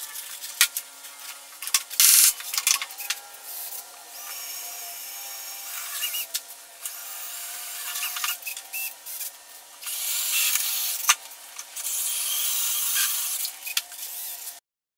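Cordless drill drilling and driving screws through an aluminium diamond-plate golf-cart rocker panel, in a few short runs. Clicks and knocks of tools and parts being handled come in between, and the sound cuts off suddenly just before the end.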